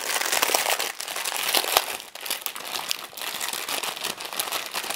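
Clear plastic packaging around a pack of diamond-painting drill bags, crinkling and rustling as hands unwrap it, in bursts with short pauses.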